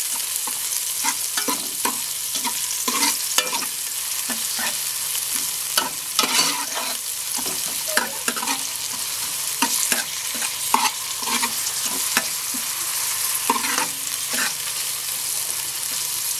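Sliced garlic and shallots sizzling in hot oil in a metal pot, with a steady hiss and the frequent irregular scrapes and clicks of a metal spatula stirring them against the pan.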